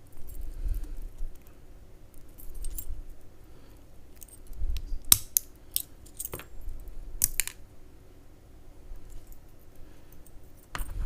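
Small metal parts of a Brinks R60 discus padlock and the tools clicking and clinking as the lock is taken apart and its tiny pins are pulled out. There is a quick run of sharp clicks about halfway through and one more near the end, over soft handling rumble.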